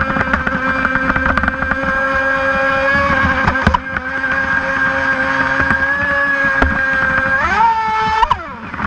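Brushless electric motor of a Hobbyking Ariane 2 RC mono racing boat whining at a steady pitch, with many short sharp ticks over it. About seven and a half seconds in the whine rises sharply, then drops away near the end as the throttle comes off.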